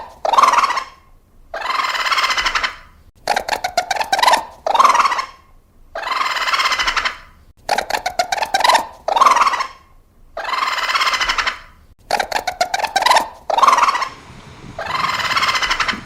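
Turkey gobbling. The same call repeats about four times, each a quick rattling gobble followed by a longer, noisier call.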